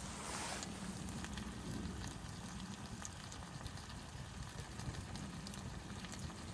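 Wood fire crackling, with scattered small pops over a steady low rumble; a short hiss right at the start.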